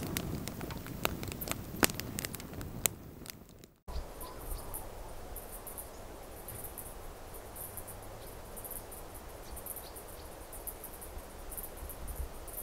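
Wood fire crackling and popping in a metal fire pit, fading out about four seconds in. Then insects chirping steadily in high, rapid pulses in the bush.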